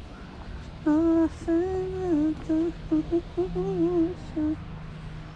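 A woman humming a short tune in sliding, wavering notes. It starts about a second in and stops after about three and a half seconds.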